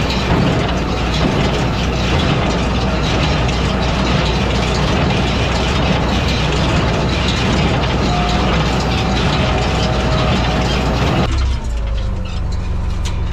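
Massey Ferguson 12 square baler running behind a tractor, its mechanism clattering over the steady tractor engine, on its first trial after sitting unused for ten years. About eleven seconds in the clatter stops suddenly, leaving the tractor engine running steadily.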